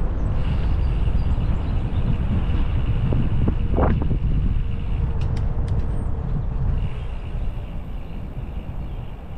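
Wind rushing over the microphone of a moving bicycle, a steady low rumble. There is a brief sharper sound about four seconds in and a few faint clicks just after five seconds, and the rumble eases off near the end.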